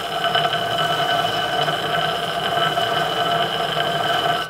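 Electric disc sander running while a steel knife blade is held against its wet, freshly changed wet/dry abrasive paper. It makes a steady whine over a grinding hiss, and the sound cuts off suddenly at the very end.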